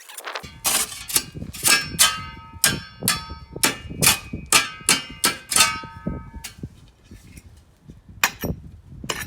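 Metal tool striking hard material in a run of ringing clangs, about two a second, then a few single strikes near the end.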